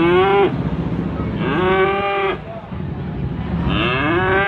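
Young beef calves bawling: three high, drawn-out moos, each rising then falling and lasting about a second, over a steady low background rumble.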